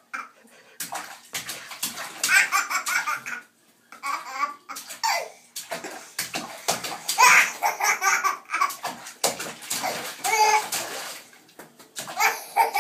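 Toddler laughing in repeated short bursts, with bathwater splashing in a tub.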